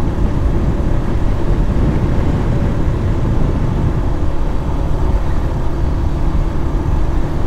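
Motorcycle riding at speed, heard from the rider's seat: a steady low rumble of engine, wind and road that does not change.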